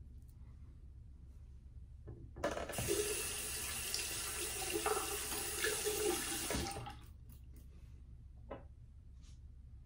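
A bathroom sink tap running for about four and a half seconds, starting and stopping abruptly, as a safety razor is rinsed under it between shaving passes.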